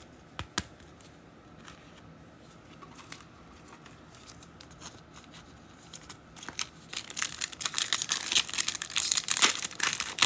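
Plastic foil wrapper of a trading-card pack being torn open and crinkled, building up about six seconds in and loudest near the end. A couple of light clicks come just after the start.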